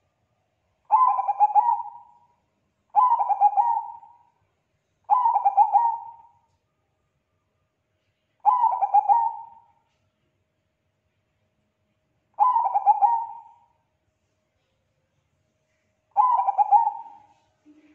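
Bangkok-type zebra dove (perkutut) cooing: six rolling coo phrases of rapid, close-set notes, each a little over a second long, with gaps of one to four seconds between.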